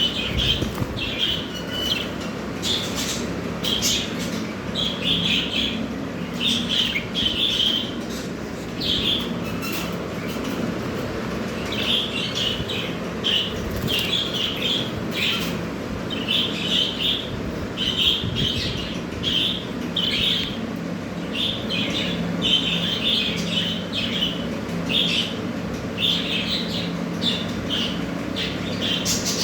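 Pied budgerigars chirping and chattering, short chirps coming in quick clusters throughout, over a steady low hum.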